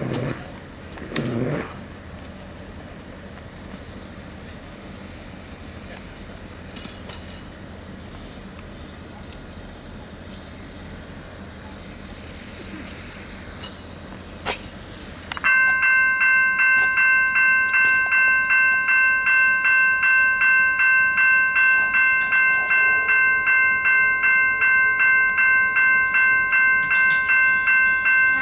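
Quiet steady background for about fifteen seconds, then a level-crossing bell starts up: a loud electronic ding repeating about twice a second, signalling an approaching train.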